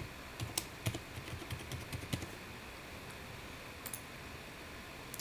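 Typing on a computer keyboard: a quick run of about a dozen keystrokes over roughly two seconds as a password is entered, followed by a short double click near four seconds in.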